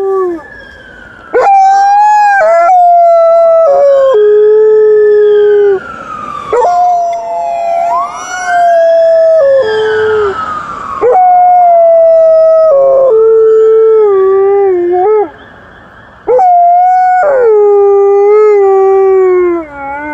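Alaskan Malamute howling, about six long drawn-out howls in a row, each dropping in pitch as it goes, in answer to a passing ambulance's siren. The siren's rising and falling wail is heard faintly behind the howls in the middle.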